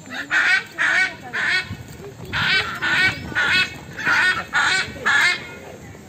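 Blue-and-yellow macaws squawking: a run of about nine short, harsh calls, roughly two a second, with a brief pause about two seconds in.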